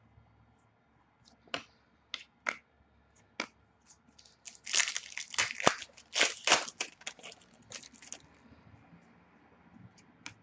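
A few sharp clicks of trading cards being handled, then a foil trading-card pack wrapper torn open and crinkled for about four seconds.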